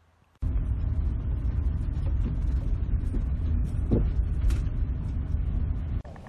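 Steady low rumble of a car driving on the road, heard from inside the cabin. It starts abruptly about half a second in and cuts off just before the end.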